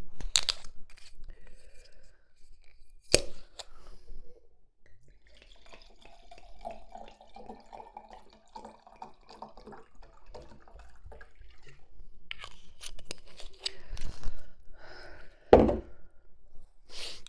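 A wine bottle twisted open with a sharp click, then white wine poured glugging into a large wine glass for several seconds, followed by a few knocks as the glass bottle is set down on the table.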